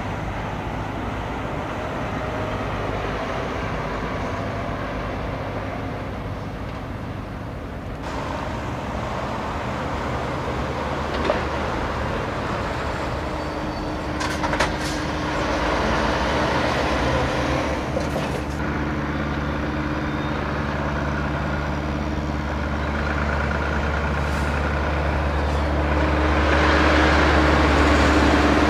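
Diesel trucks running and moving past with a steady low engine hum, which grows louder about halfway through and again near the end as a truck comes close. A few short clicks break in between.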